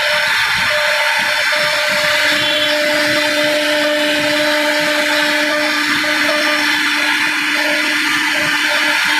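CNC router spindle running steadily, its bit cutting into wood with a constant high whine.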